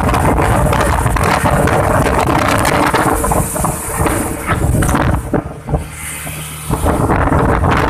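Outboard-powered motorboat running at speed across choppy water: heavy wind buffeting on the microphone over the engine's drone, with scattered knocks. For about a second and a half past the five-second mark the wind noise falls away, leaving a steady engine hum.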